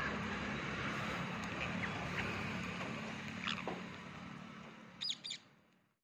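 Scattered short chirps from a feeding flock of rose-ringed parakeets over a steady background rush, with two sharp high calls about five seconds in. The background then fades away.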